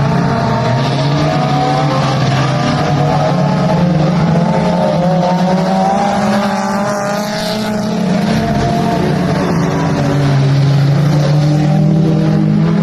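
Dirt-track mini stock race car's engine running hard under racing load, its pitch rising and falling with the throttle. It eases off around the middle and pulls strongly again near the end.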